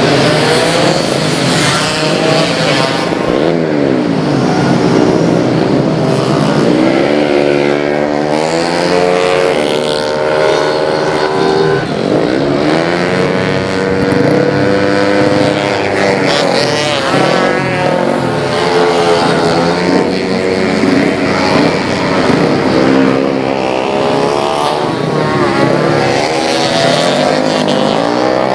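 Several race-tuned automatic scooters revving hard as they lap the circuit. Their engine notes overlap, rising under acceleration and falling away as they pass.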